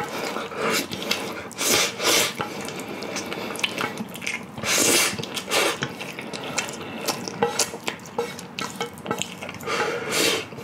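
A person slurping and gulping leftover liquid straight from the rim of a large pot tipped to the mouth. Several long slurps (near the start, around two seconds in, around five seconds in and near the end) with small wet clicks and the odd knock of the pot between.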